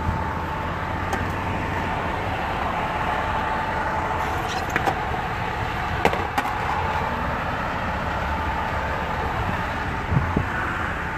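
Steady street and vehicle noise, a running engine rumbling with a faint steady whine over it, and a few sharp clicks and knocks about five, six and ten seconds in.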